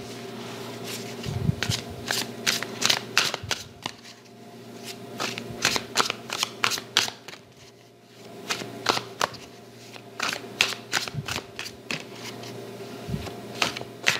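A small deck of cards being shuffled by hand: runs of quick crisp card flicks, pausing briefly about four and eight seconds in.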